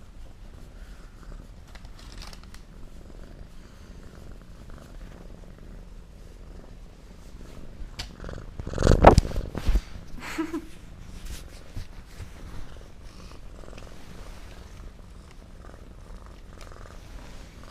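Domestic cat purring steadily, close up. About nine seconds in there is a loud, brief bump or rub close by, the loudest sound here.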